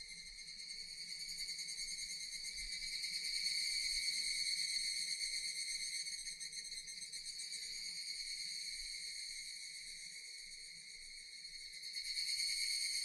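Japanese cicadas singing: a continuous high-pitched buzzing drone that swells louder a few seconds in, eases off, and swells again near the end.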